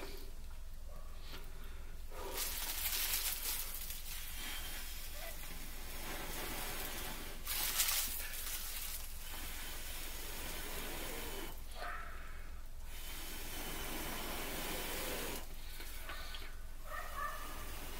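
A person blowing steady, long breaths into a smouldering dry-grass tinder nest to fan a fire-drill ember into flame, each breath a rushing hiss, the strongest about three seconds and eight seconds in.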